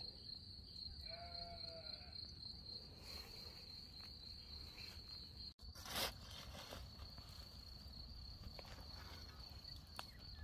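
A steady high-pitched insect chirring, with a single short bleat about a second in. Just after six seconds, a brief loud scrape of a metal shovel raking the embers of a wood fire.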